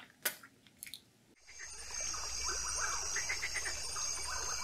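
Jungle ambience sound effect: a steady high insect drone with many short chirping calls over a low rumble, starting about a second and a half in after a few faint clicks.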